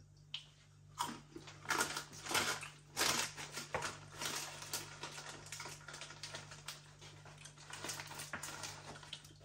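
Crunching of Snackrite Saucy Nibbley Nobblies, crunchy maize snacks, being bitten and chewed. It is a rapid, irregular crackle that starts about a second in, is loudest over the next few seconds and thins out toward the end.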